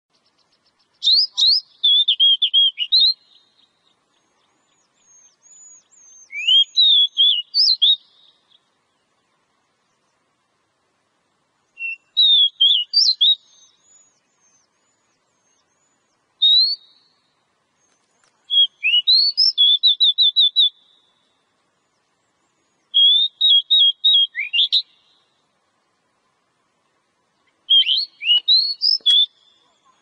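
Oriental magpie-robin singing. Seven short phrases of varied clear whistles, some with quickly repeated notes, are separated by pauses of a few seconds.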